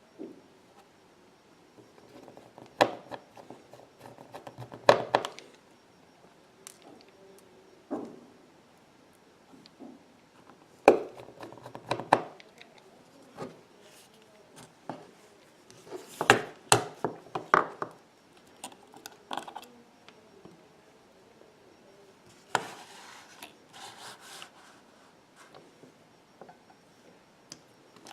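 Irregular clicks, taps and light scrapes of small metal repair tools and parts being handled on an iPhone 6's internals, coming in clusters, with a longer rustling scrape about three quarters of the way through.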